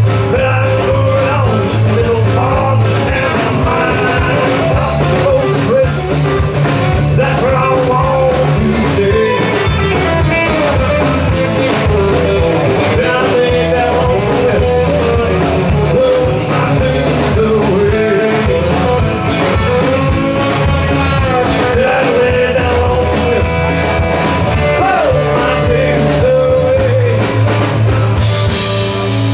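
Live band playing amplified rock music: acoustic and electric guitars, electric bass and a drum kit keeping a steady beat, with a male lead singer.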